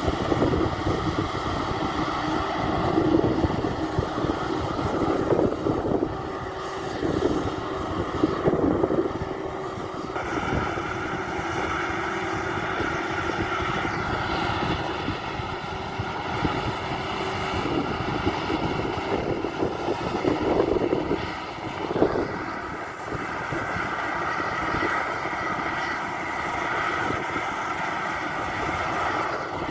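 Maxxi Bimo 102 rice combine harvester running steadily while harvesting, its engine and threshing machinery making a continuous mechanical drone with a steady whine whose pitch shifts about halfway through.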